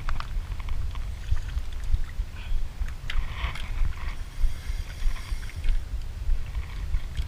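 Wind buffeting the microphone in an uneven low rumble, over sea water moving against a small outrigger canoe, with a few faint clicks near the start.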